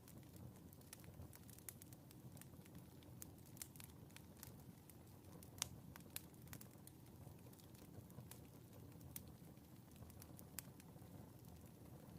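Faint fireplace ambience: a wood fire crackling, with scattered small pops over a steady low rumble and one sharper pop about halfway through.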